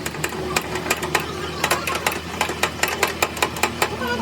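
Rapid sharp knocks, about three or four a second and uneven in spacing, over a steady low hum from a running machine in a gear-repair workshop.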